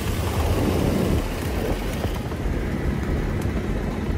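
Chopper motorcycles riding along a city street, their engines running under road noise. The higher hiss drops away about two seconds in.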